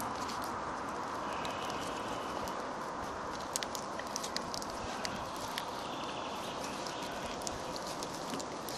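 Steady outdoor hiss with scattered small clicks and rustles, more of them in the second half, as birch twigs are handled and bound into a bath whisk.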